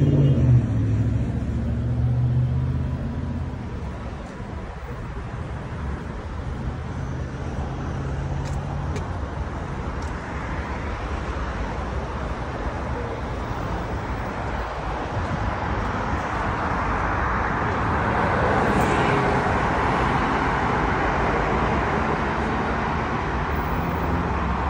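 Road traffic: low hum of slow, queued cars idling and creeping along, then a steady rush of highway traffic passing below that grows louder in the second half.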